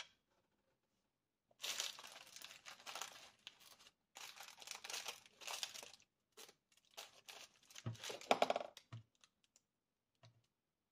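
Crinkling and rustling of craft materials being handled at a table, in two stretches of a couple of seconds each. Then a scatter of light clicks and a few soft taps.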